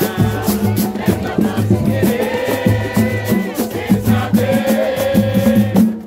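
Live samba music: voices singing together over percussion with a steady, rapid beat and a low drum pulse.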